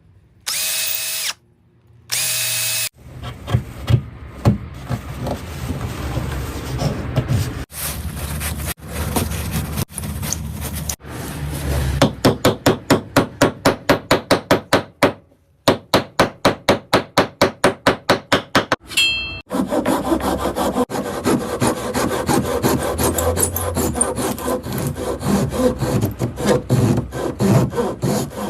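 Woodworking tool sounds in a string of short, abruptly cut segments. There is rubbing and sawing on wood, two runs of quick back-and-forth strokes at about six a second, and stretches of a power tool running.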